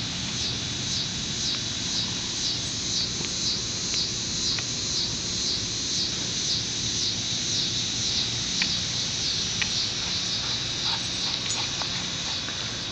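Chorus of insects singing outdoors at dusk, a high-pitched pulsing about three times a second, over a steady low hum. A few faint ticks come in the second half.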